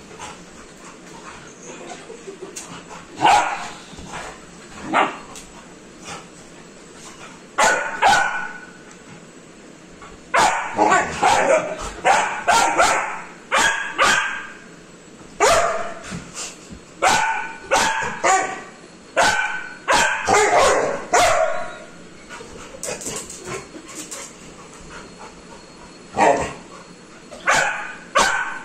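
Labrador puppy barking in short, high-pitched yaps at an older dog: a few single barks at first, then rapid runs of barks through the middle, a pause, and another run near the end.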